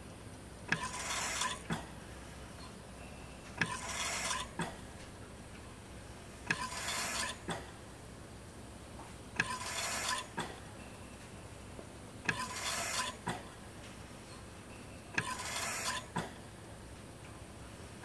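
Medical ventilator cycling: roughly every three seconds a click, then a short whoosh of air lasting under a second, closed by another click, over a faint steady low hum. Six breaths are delivered.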